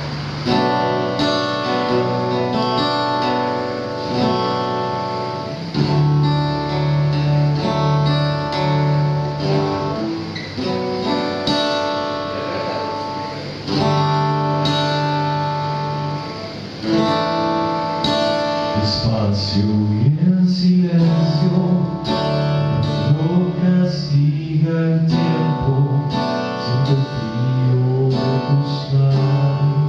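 Acoustic guitar played live, ringing chords picked and strummed, with a man's voice singing along in the second half.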